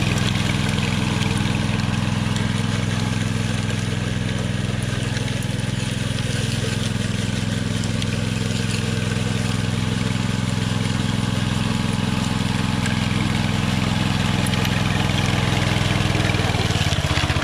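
Walk-behind power trowel's small gas engine running steadily while its spinning blades finish the surface of a freshly poured concrete slab.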